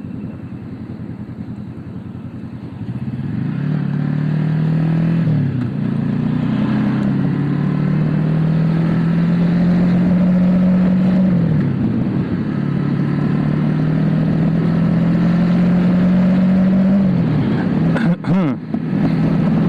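Motorcycle engine heard from the rider's seat, running quietly at first, then pulling away and accelerating through the gears. Its pitch climbs steadily and falls back at each upshift, about 5, 11 and 17 seconds in. A few short knocks come near the end.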